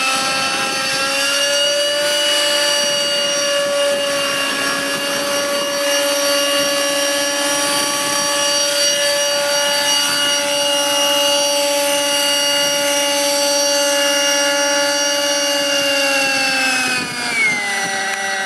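Radio-controlled model helicopter's glow-fuel (nitro) engine and rotors running at a steady high-pitched whine. Over the last couple of seconds the pitch drops as the engine is throttled back after the helicopter sets down.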